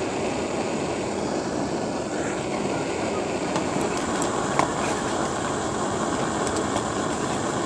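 Canister gas camping stove burning steadily under a metal mug, a constant rushing flame noise. A light metal clink a little past halfway as the mug is handled.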